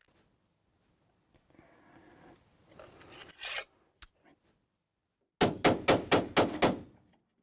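A hand tool rasping on wood. After some faint scraping and a single click, a quick run of about eight sharp rasping strokes, roughly six a second, comes a little over five seconds in.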